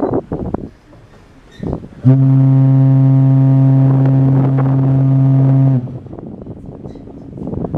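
The BC Ferries Spirit of Vancouver Island's ship horn sounding one long, steady, deep blast of nearly four seconds, starting about two seconds in and stopping cleanly.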